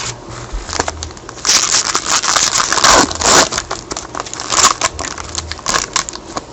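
A trading card pack's wrapper being torn open and crinkled in gloved hands, with a dense run of crackling about one and a half to three and a half seconds in and shorter rustles after.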